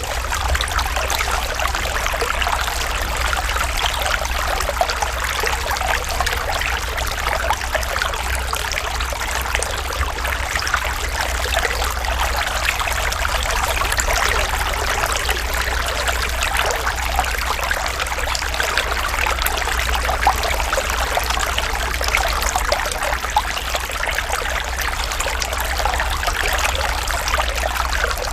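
Natural running water, a small stream trickling and babbling steadily with many small splashes, over a steady low rumble.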